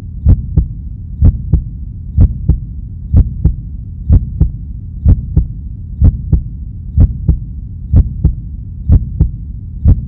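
Heartbeat sound effect: a steady double thump, lub-dub, repeating a little faster than once a second over a continuous low hum.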